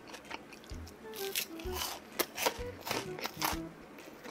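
Close-up crunching and chewing of a bite of crisp breaded pork cutlet (tonkatsu), a run of crisp crackles over a few seconds, with quiet background music.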